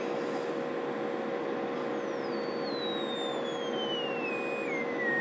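Audio test tone from a signal generator being swept down in frequency: a high whistle that falls in pitch in small steps from about two seconds in, over a steady hum and hiss. It is the audio-response sweep fed into a CB radio's mic input to check its modulation for distortion.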